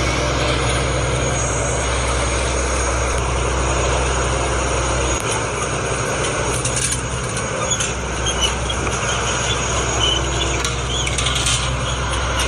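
A small engine running steadily, a low even drone, with a few light clicks in the second half.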